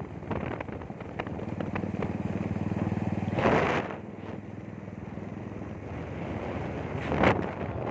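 Motorcycle engine running steadily while riding, with wind buffeting the microphone; two strong gusts of wind noise come about halfway through and near the end.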